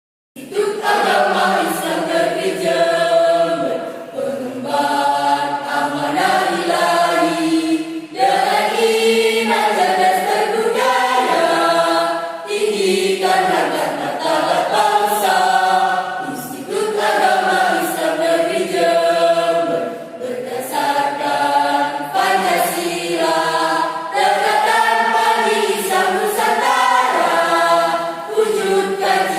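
A choir singing in several voices, in phrases of about four seconds, starting about half a second in.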